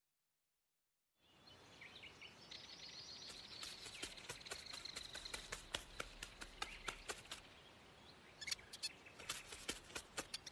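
Silence for about a second, then faint forest ambience: birds chirping and many light ticks scattered through it.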